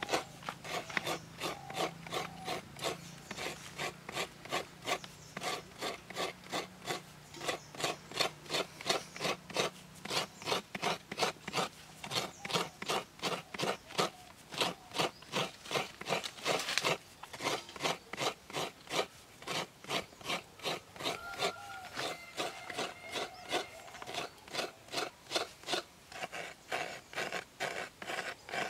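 Fresh coconut being grated by hand, the half coconut's flesh rubbed against the ridged inside of a bowl: rhythmic scraping strokes, about two a second.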